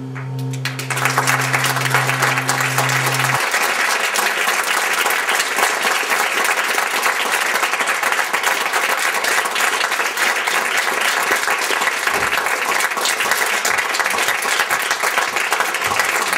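Audience applauding: dense, steady clapping that breaks out about a second in. Underneath it, the low held drone of the piece's experimental music sustains and stops about three seconds in.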